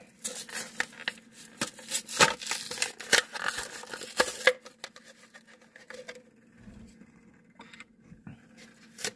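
Clear plastic blister packaging crinkling and crackling as a small die-cast toy car is worked out of it: a dense run of crackles for about four and a half seconds, then scattered light clicks and taps.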